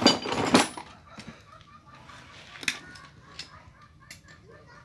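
Metal tools and transmission parts clanking during disassembly: a loud clatter at the start, then a few sharp metallic clicks.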